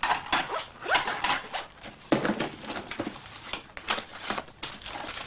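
Irregular knocks, clinks and rustling from handling things on a kitchen table: breakfast dishes being cleared while a school satchel is packed.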